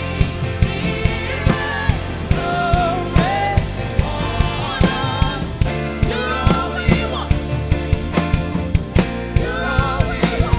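Live worship band playing with drum kit and sung melody.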